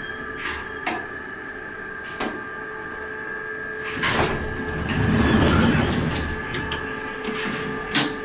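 Southern passenger elevator in service: a steady mechanical hum with a few sharp clicks, and a louder rushing, rumbling swell about four seconds in that fades by about six and a half seconds.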